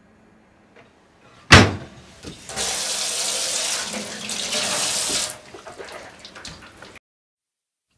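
A sharp knock, then a kitchen tap running into a stainless steel sink for about three seconds before it is turned off, followed by a light clatter.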